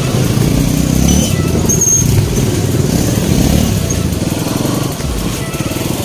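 Motorcycle engine running steadily, heard from on board the bike as it rides along a rough dirt road.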